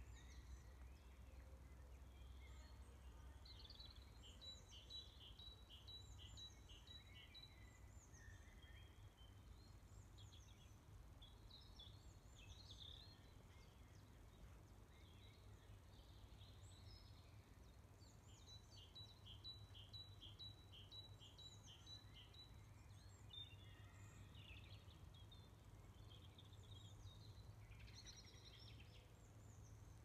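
Faint woodland birdsong. One small songbird twice sings a rhythmic phrase of about eight short repeated notes, around 4 s in and again about two-thirds of the way through, among scattered chirps from other birds, over a low steady rumble.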